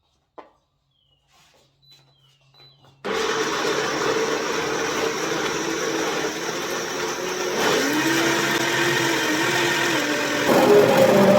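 Electric blender switching on about three seconds in after a few small clicks, then running loud as it grinds soaked, peeled black-eyed beans with onion, pepper and a little water into a thick batter. The motor's pitch shifts around the middle and it steps up louder near the end.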